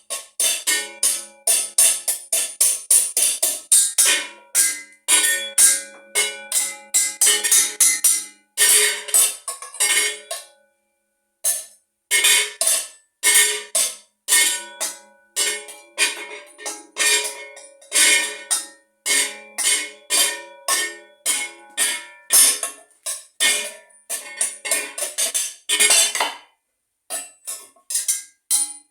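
A set of bells rung in quick rhythmic patterns, several strikes a second, the small high bells loudest over lower ringing tones. The ringing breaks off briefly about eleven seconds in and again near the end.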